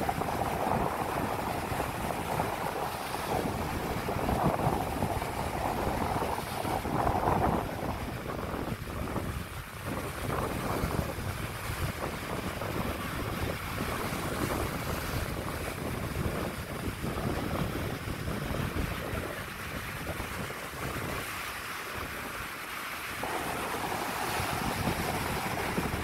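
Small ocean surf breaking close by and washing up over sand, a continuous rushing wash that swells and eases with the waves, with wind rumbling on the microphone.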